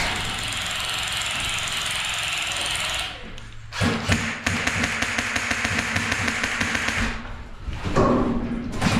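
HPA airsoft rifle firing long full-auto strings, a rapid even rattle of shots. It stops about three seconds in and starts again about a second later for another long string.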